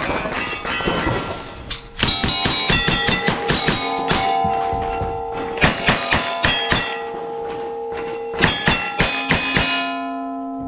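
A string of rifle shots at steel targets: a quick run of sharp cracks, then more spaced shots, each hit leaving the steel plates ringing with sustained metallic tones that overlap and hang between shots.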